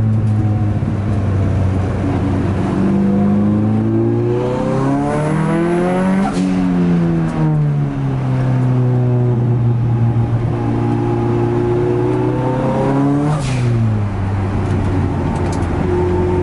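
Nissan SR20DET turbocharged four-cylinder in an S13 Silvia, heard from inside the cabin while driving. The engine climbs in pitch under acceleration, drops away about six seconds in, runs steadily, and falls in pitch again near the end.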